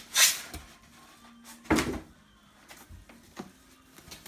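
TV packaging and plastic parts being handled: two short scraping rustles, the louder one about one and a half seconds in, then a couple of faint knocks.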